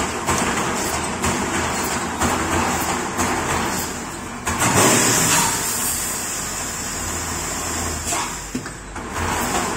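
Wire mesh fence welding machine running: a clacking of its welding strokes, about two a second, over a steady hum, with a louder hissing rush about halfway through.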